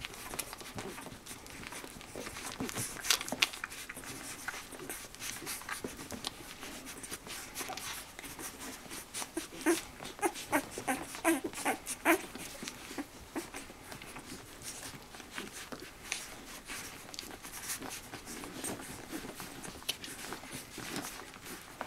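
A litter of newborn puppies nursing, with many small wet suckling clicks and smacks. About ten seconds in comes a run of short, high puppy squeaks and whimpers, the loudest sounds here.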